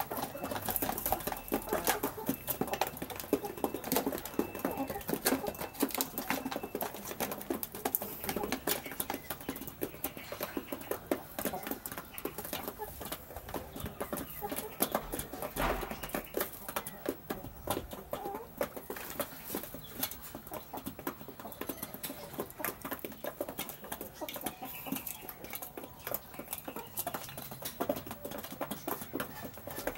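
A flock of half-grown chickens pecking at feed on a hard floor: rapid, irregular taps of beaks, with some clucking among them.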